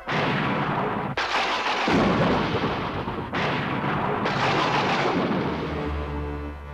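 Cartoon sound effect: four loud bursts of noise, each cutting in suddenly and trailing off, like blasts. Low music tones come in near the end.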